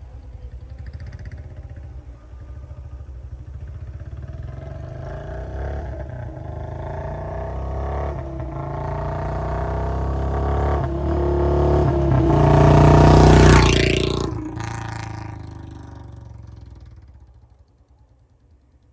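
Royal Enfield Bullet 350's single-cylinder engine through a long-bottle silencer and C-bend pipe, as the motorcycle rides up and past. The exhaust note grows steadily louder to a peak about two-thirds of the way in, then fades away.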